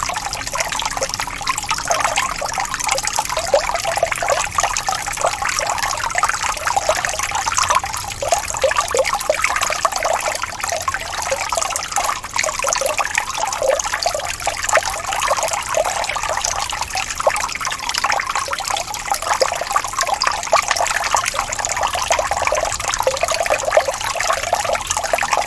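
Water falling from a fountain and splashing into a pool: a steady, continuous trickling and splashing.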